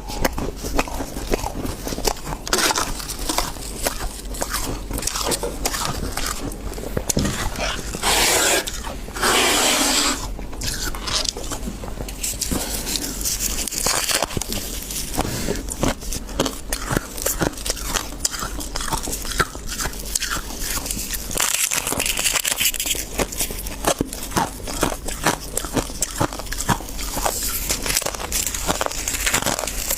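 Close-miked biting and chewing of freezer frost, a dense run of irregular squeaky crunches. Two longer, louder crunching stretches come about eight and nine seconds in.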